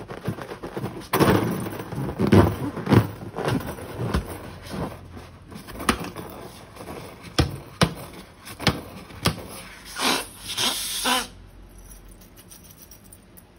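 Slime being squeezed and worked by hand, with irregular sticky clicks, pops and squelches. A longer hissing squelch comes about ten seconds in and stops abruptly about a second later.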